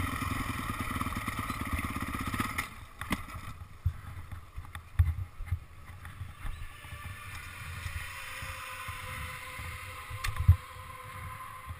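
Motocross bike engine running under throttle, heard muffled through a helmet camera's case. A little under three seconds in, the throttle is shut and the engine drops to a low, quiet running as the bike rolls on, with scattered low thumps.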